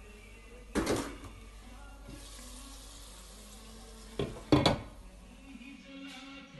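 Cookware clanking on a stove top: one sharp metal clank about a second in, then a quick double clank as a glass lid is lifted off a pot of potatoes. A soft hiss of water or steam comes between them.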